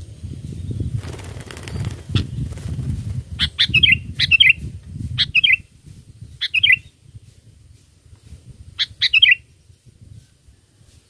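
Sooty-headed bulbul (kutilang) calling: a short, quick bubbling phrase repeated five times with gaps between. A low rumbling noise runs under the first half and fades out after about five and a half seconds.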